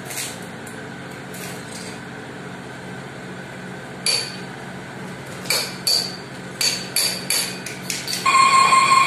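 Large engine lathe running with a low hum that pulses evenly about twice a second. Through the second half come repeated sharp metallic clinks with a short ring.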